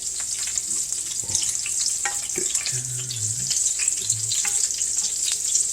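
Breaded duck pieces frying in hot oil: a steady sizzle with scattered pops and crackles of spitting oil.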